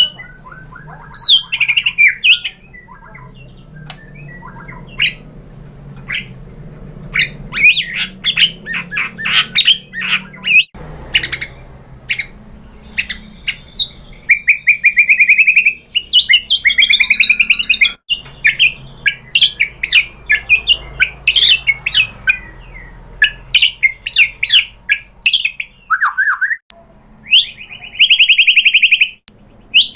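White-rumped shama singing a varied song of short whistles, slurred chirps and trills. Near the end it delivers a fast run of rapidly repeated notes.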